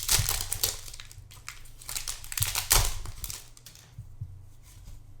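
Foil wrapper of a Pokémon TCG booster pack crinkling and tearing as it is opened by hand, a dense crackle that dies down about four seconds in.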